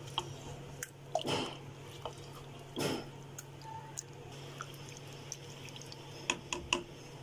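Silicone spatula stirring raw liver pieces through thick masala marinade and oil in a pan: irregular wet squelches and small clicks, over a low steady hum.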